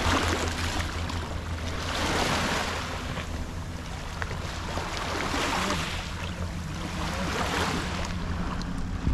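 Small waves washing onto the beach, the surf swelling and fading every two to three seconds over a steady low hum.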